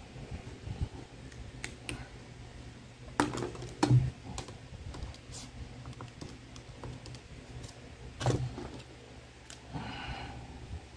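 A Casio desk calculator being picked up and set down on a hard surface, with knocks a little after 3 seconds, near 4 seconds and again after 8 seconds. Its keys are tapped in between, light clicks. A marker squeaks briefly on a whiteboard near the end.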